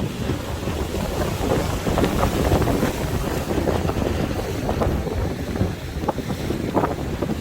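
Strong wind buffeting the microphone over the wash of sea waves, a continuous rumble with crackling gusts.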